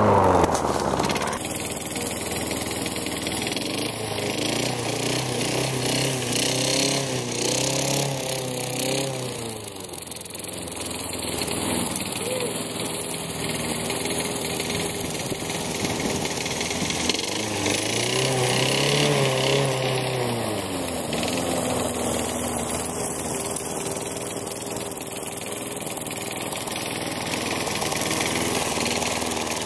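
Worn Tecumseh lawn mower engine with bad rings and a scored cylinder, running with its throttle pulled by hand past the governor. It is revved up twice, about seven and nineteen seconds in, the pitch rising and then dropping back to a steady run.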